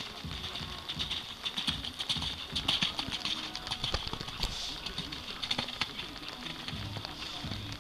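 Steady rain falling, with scattered drops tapping sharply close to the microphone.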